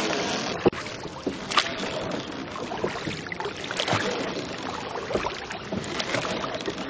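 Water lapping around a small rowboat on the river, with scattered knocks and splashes.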